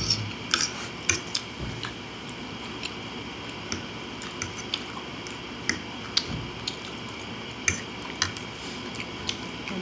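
Metal fork clinking and scraping against a ceramic plate while spaghetti is twirled and eaten, heard as scattered short sharp clicks.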